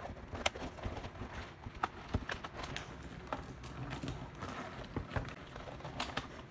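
Handling noise from a silicone underwater camera cover being stretched and worked over a DSLR and its lens: irregular light knocks and clicks, a few a second, with soft rubbing between them.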